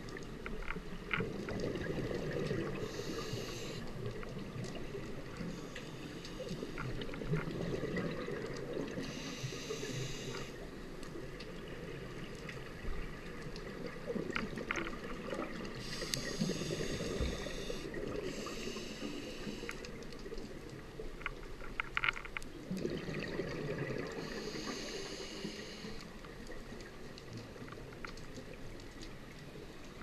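Scuba diver breathing through a regulator underwater: steady bubbling with several hissing breaths, each lasting a second or two, every several seconds.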